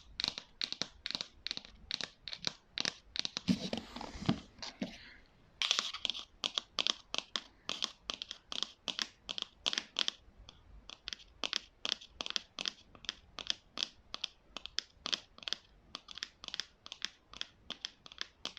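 ASMR tapping on a prop: quick, light, even knocks at about four a second. About three and a half seconds in, the tapping gives way to about a second and a half of rustling handling noise with a couple of soft thumps, then resumes.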